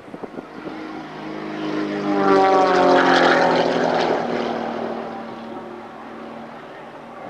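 Extra 300 aerobatic propeller plane making a low pass: its engine and propeller drone swells and peaks about two to four seconds in, with the pitch sliding down as it goes by, then fades.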